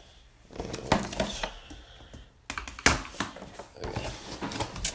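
Wooden colored pencils clicking and rattling against each other in their box as one is picked out: a string of light clicks, sharpest about three seconds in and just before the end.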